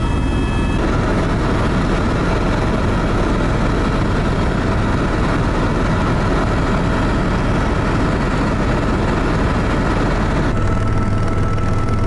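Helicopter in flight heard from inside the cabin: a loud, steady drone of engine and rotor with a faint high whine over it, its tone shifting slightly about ten seconds in.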